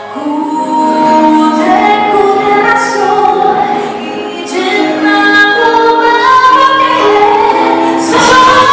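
A woman singing lead with a live band. There is an abrupt change in the sound shortly before the end.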